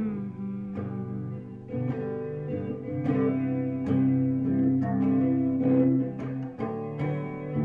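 Guitar playing an instrumental passage of a song, with repeated plucked and strummed chords and no singing.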